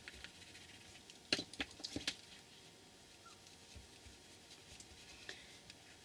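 Quiet room with a few light clicks and taps, a small cluster between one and two seconds in and one more a little after five seconds.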